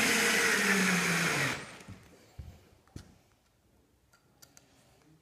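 Electric motor of a power tool running loudly, its whine falling in pitch as it winds down and stops about a second and a half in. A few light taps and clicks follow.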